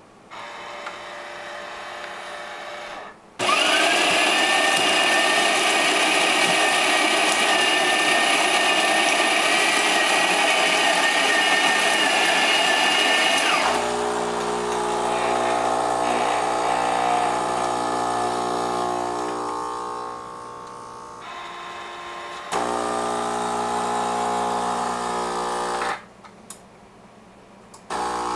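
Krups XP7225 fully automatic espresso machine running loudly: after a quieter hum, its built-in grinder whines with a steady high tone for about ten seconds, then cuts off and the pump hums steadily as it brews, dipping briefly two-thirds of the way through and pausing near the end.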